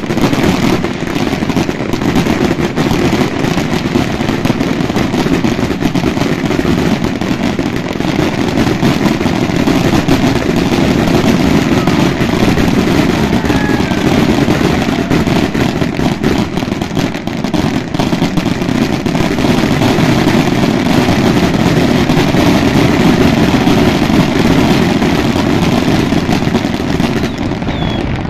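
Dense fireworks barrage: a continuous loud rumble of overlapping bangs with crackling on top, with no pause between shots.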